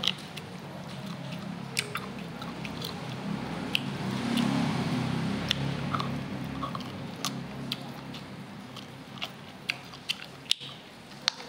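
A person biting and chewing boiled beef close to the microphone: scattered short, wet mouth clicks over a low steady hum.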